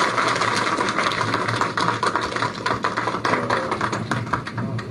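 An audience applauding: dense clapping that thins out near the end.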